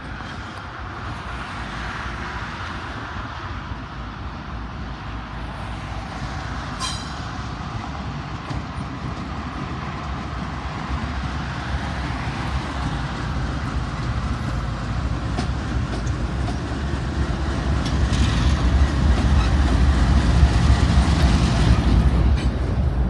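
A pair of Norfolk Southern diesel freight locomotives running light along the tracks: a steady engine rumble that grows louder as they approach and is loudest near the end as they pass close below.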